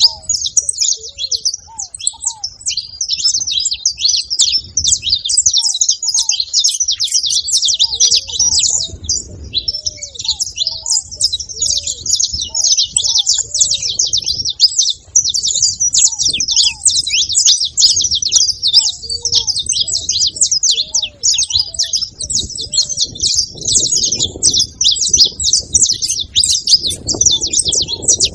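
Several saffron finches chirping and twittering in a dense, continuous, high-pitched chorus, with short low whistled notes repeated about once a second beneath it.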